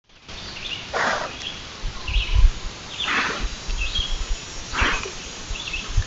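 White-tailed deer breathing and sniffing close to the trail camera: a breathy huff about every two seconds, four in all. Small bird chirps sound faintly between them.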